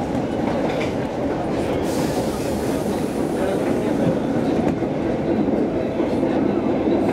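Stockholm Metro C6 subway car running along the track, heard from inside the car: a steady rumble of wheels and running gear.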